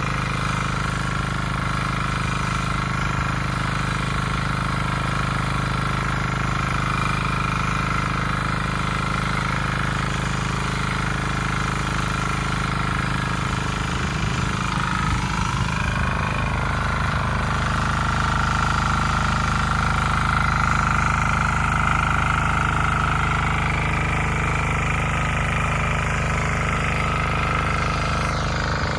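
Bolat Atom walk-behind rotary tiller's engine running steadily under load as it cuts a furrow in second gear. About halfway through, its note shifts briefly, then it runs on slightly louder.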